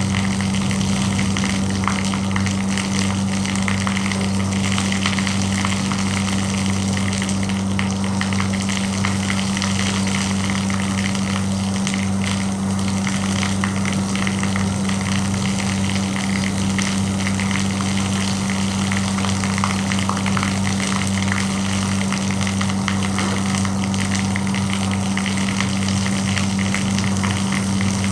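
Small electric spray pump running with a steady hum while its thin hose jets water onto a window air conditioner, over the continuous hiss and spatter of the spray.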